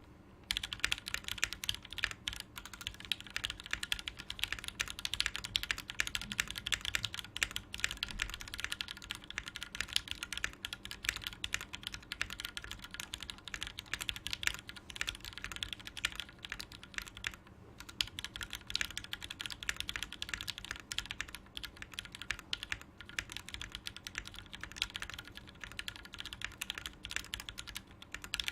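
Typing on a custom tenkeyless mechanical keyboard with lubed Gateron Black linear switches and GMK Royal ABS keycaps: a continuous run of keystrokes that starts about half a second in, with a brief pause a little past halfway.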